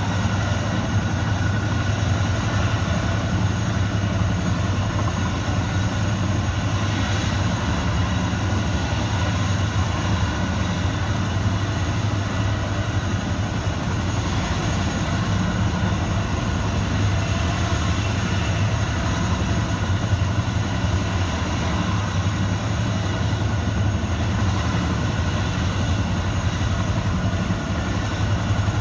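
CH-47 Chinook helicopter running on the ground with its rotors turning: the twin-rotor helicopter's steady engine and rotor noise, with no change in pitch or level.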